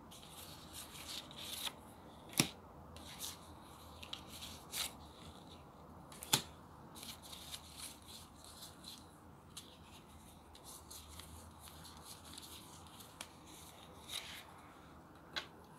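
Tarot cards being handled and laid out on a wooden table: faint papery rustles and slides, with scattered light clicks and two sharper snaps, one a couple of seconds in and one about six seconds in.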